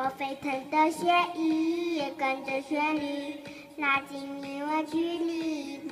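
A young boy singing into a handheld karaoke microphone, holding long notes that slide from one pitch to the next.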